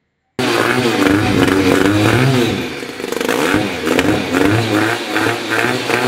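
Valentino Taro GP One sports bike's twin-cylinder engine revved repeatedly, its exhaust note rising and falling with each throttle blip. It starts abruptly just under half a second in.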